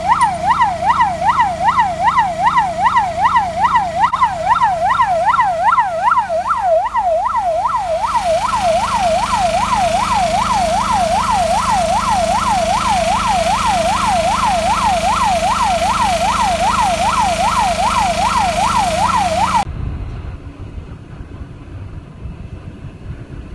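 Ambulance siren in a fast yelp, its pitch sweeping up and down several times a second, cutting off suddenly about 20 seconds in. A steady hiss joins about 8 seconds in, and a low rumble remains after the siren stops.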